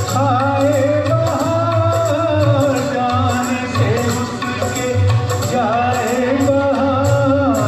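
Hindi film-song music played with a wavering melody line over a steady pulsing beat, an instrumental passage between sung lines.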